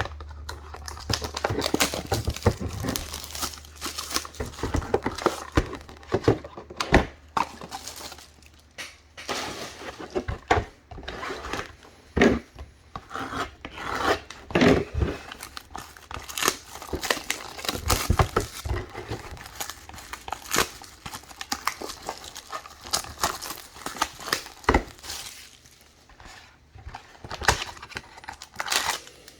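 Card-box wrapping and foil trading-card packs being torn open and crinkled, a run of irregular crackles, rips and taps as packs and cards are handled.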